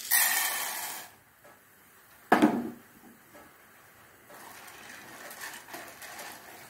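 Popcorn kernels tipped into hot coconut oil in a frying pan: a loud sizzle about a second long that fades out. A single sharp knock a little after two seconds in, then a wooden spatula stirring and scraping the kernels around the pan.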